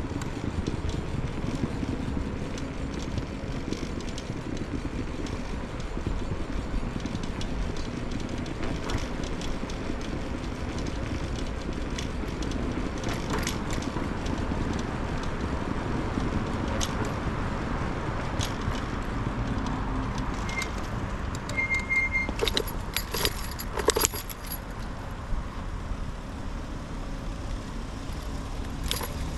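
A scooter riding along city streets: a steady low rumble from the ride, with frequent rattles and clicks from the scooter over bumps. Short high beeps come about two-thirds of the way in, followed by a burst of louder rattling.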